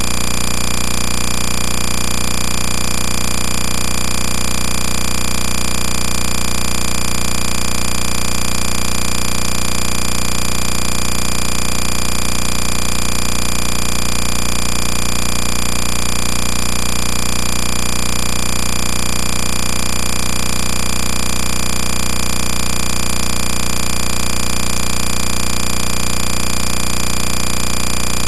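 A steady, loud mechanical drone that does not change, with fixed tones spread from low to very high.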